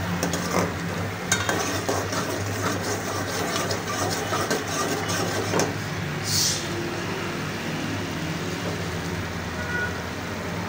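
Steel ladle stirring mutton and masala gravy in a metal pot over the fire, with clinks and scrapes against the pot and sizzling, for about the first five and a half seconds. A brief hiss follows about six seconds in, and a steady low hum runs underneath throughout.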